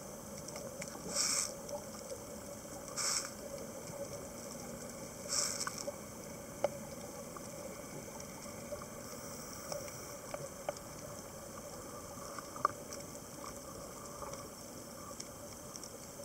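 Underwater sound picked up by a camera: a few short bubbly hisses in the first six seconds, then scattered sharp clicks, over a faint steady hum.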